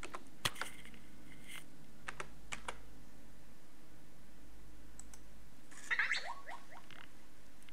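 A computer keyboard: a few quick key presses in two short bursts as a six-digit pairing PIN is typed in. About six seconds in comes a short burst of chirping tones.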